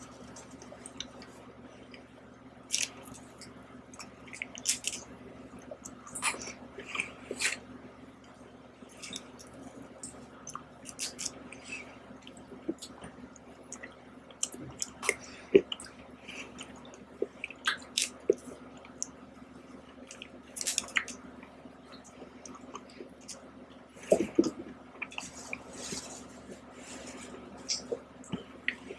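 Close-miked mouth sounds of eating ice cream off a metal spoon: soft, wet chewing and lip smacks in scattered, irregular sharp clicks, over a faint steady hum.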